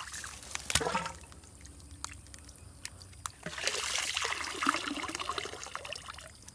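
Water trickling and pouring out of a PVC eel-trap tube as it is tipped up to drain, heaviest in the second half. A few knocks from handling the pipe come near the start.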